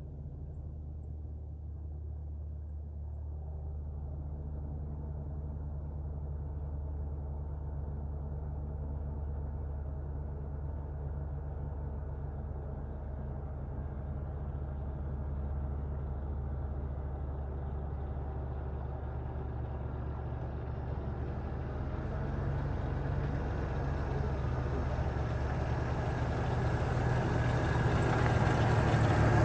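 Lifted Jeep Wrangler YJ's engine running as it drives slowly up a dirt trail, a steady low hum that grows steadily louder over the last several seconds as the Jeep comes close.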